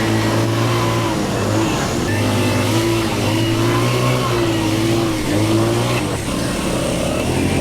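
ATV engine running under way, its pitch rising and falling a little with the throttle.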